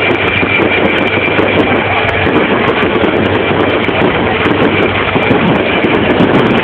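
Fireworks going off in a dense barrage: a steady, loud rumble of many shells bursting together, with many small crackles through it.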